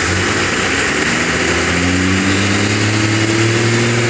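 Diesel pickup truck engine revving, its pitch climbing slowly over a few seconds, over a steady hiss.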